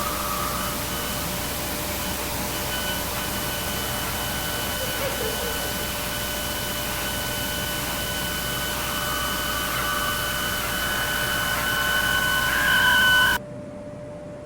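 Loud static hiss over a steady electronic hum-like tone, joined about three seconds in by two higher whining tones. It swells near the end, then cuts off suddenly to a quieter, duller hiss.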